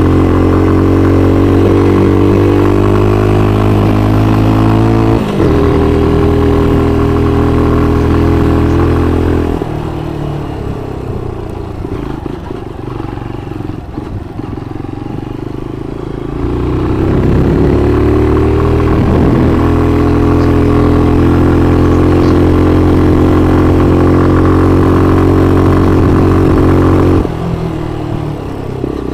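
Motorcycle engine running under way at a steady pitch, with a brief break about five seconds in. It eases off and goes quieter for several seconds, then pulls again with pitch rising back to a steady cruise, and backs off once more near the end.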